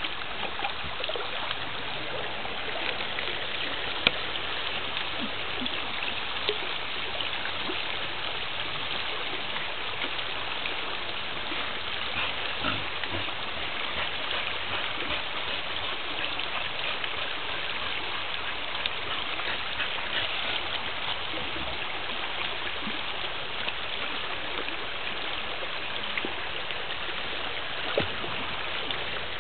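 Shallow creek rushing steadily over rock, with light splashing as a dog wades through the water and a couple of brief sharp taps, about four seconds in and near the end.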